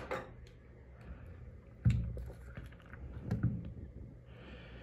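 Quiet handling of a phone and its small parts on a silicone repair mat: two soft knocks, about two seconds in and again a second and a half later, over a steady low hum, with a brief soft hiss near the end.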